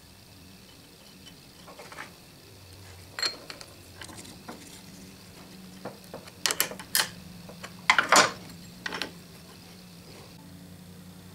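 Adjustable wrench clinking against the nut and change gears as the nut on the 80-tooth idler gear stud of a South Bend 9-inch lathe is fitted and tightened, the gears held with a wooden stick. Scattered sharp metallic clicks, with a quick cluster about two-thirds of the way through.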